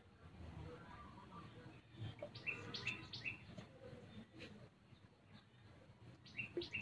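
A small bird singing faintly: a quick series of short, repeated chirping notes, trailing off in the middle and starting up again near the end.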